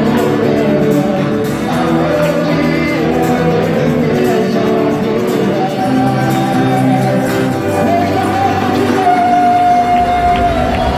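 Loud praise and worship music with singing voices, ending in a long held high note near the end.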